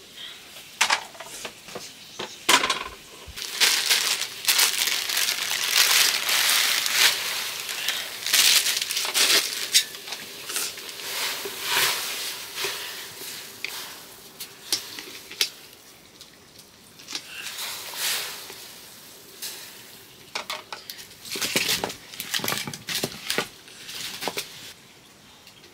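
Pots and utensils being handled while cooking: irregular clinks, knocks, scrapes and rustling, busiest through the first ten seconds or so and again a little after twenty seconds.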